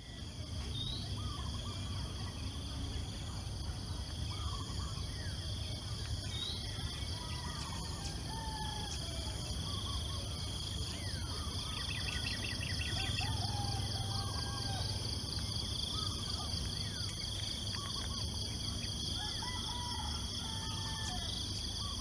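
Dawn chorus: scattered whistled bird calls, with a fast trill about halfway through, over the steady high drone of insects and a low rumble underneath.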